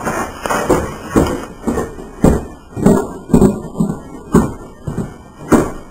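Footsteps thudding close to the microphone while walking, about two a second and unevenly spaced.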